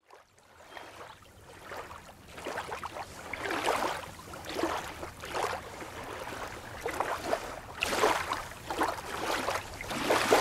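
Small waves lapping and splashing at a sandy lakeshore in irregular surges, fading in from silence over the first couple of seconds.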